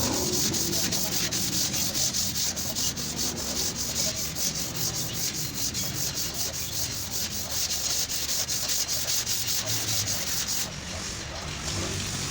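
Sandpaper being rubbed over a car body panel in quick, even back-and-forth strokes, about five a second, easing off about eleven seconds in. This is surface preparation in accident repair bodywork.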